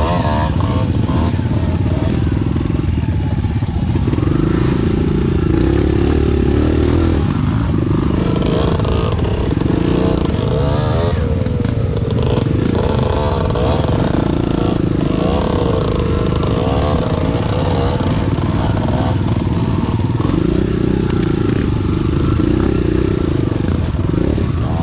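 Enduro dirt bike engine running under way, its pitch rising and falling repeatedly as the throttle is worked.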